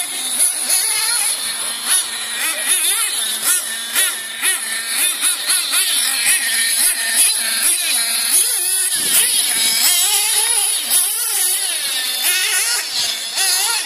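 Kyosho MP9 TKI3 1/8-scale nitro buggy's small glow engine revving, its high pitch rising and falling over and over as the throttle is worked, over a steady high hiss.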